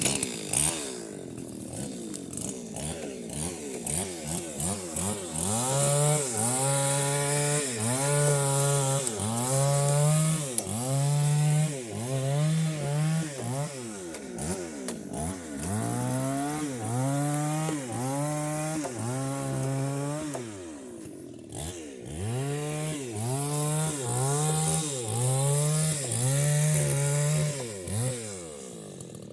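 Chainsaw engine revving up and down over and over, its pitch rising and falling more than once a second, with two short breaks.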